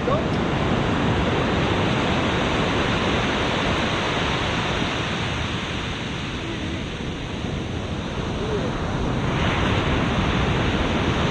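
Ocean surf breaking and washing up a sandy beach, with wind buffeting the microphone; the wash swells louder about nine seconds in.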